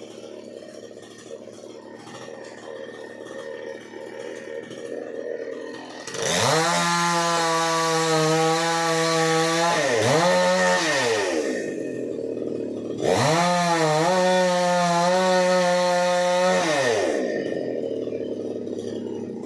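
Chainsaw running low, then revved to full throttle about six seconds in and held for a few seconds, given a short blip, and revved hard again for about four seconds before dropping back, as in cutting into a tree.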